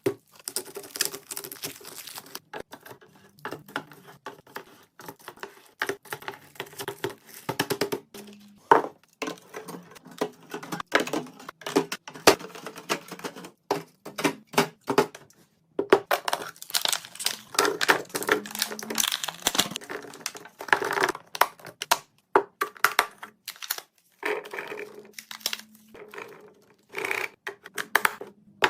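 Handling sounds from restocking a fridge: plastic packaging crinkling and rustling, with many quick clicks and taps as containers and items are picked up and set down.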